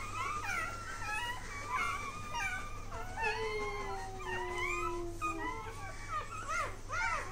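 Several newborn Rottweiler puppies whimpering and squeaking at once: many short, high, overlapping cries, with one longer, lower, falling whine in the middle.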